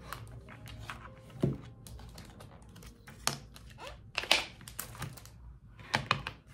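Hard plastic clicking and knocking as white plastic storage baskets and organizer parts are handled and set down on a desk, with light rattles between a handful of sharper knocks.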